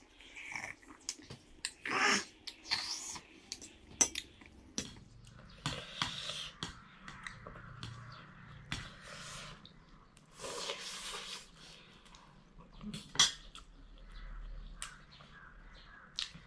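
Close-up eating sounds: sips from a glass near the start, then a fork clicking and scraping on a metal plate of noodles between bouts of chewing, with many short sharp clicks.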